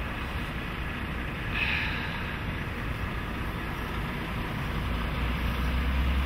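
Steady outdoor background noise, a rushing hiss over a low rumble that grows louder near the end, with a brief brighter hiss about one and a half seconds in.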